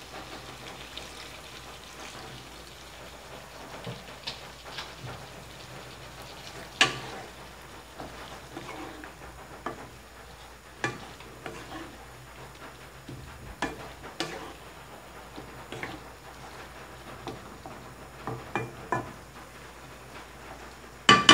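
Chicken livers and gizzards cooking in soy sauce in a wok with a steady low sizzle, as a wooden spatula stirs them and clicks against the pan every few seconds, with one sharper knock near the end.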